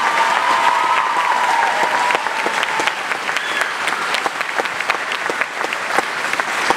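Audience applauding a choir with dense, steady clapping. A long held cheer rises over it at the start and fades out about three seconds in.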